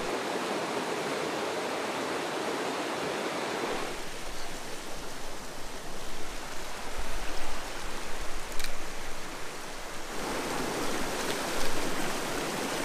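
Rushing water of a rocky trout creek running through rapids, a steady wash of noise. Its character shifts abruptly about four seconds in and again near the end, with a more uneven stretch between.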